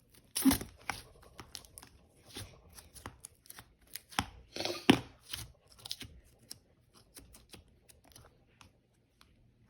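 Slime worked by hand: irregular sticky clicks, pops and squishes. The loudest come about half a second in and again around four to five seconds in, and they thin out near the end.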